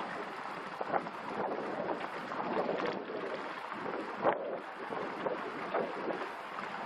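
Wind buffeting the microphone of a 360° action camera mounted on a camper van: an uneven rush of noise with sharper gusts about a second in and again after four seconds.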